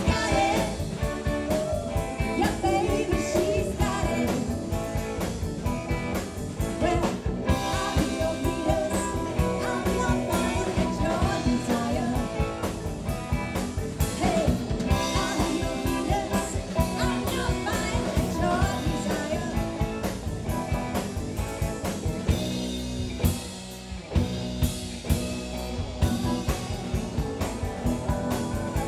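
Live rock band playing: a woman singing lead over electric guitar, electric bass and a drum kit.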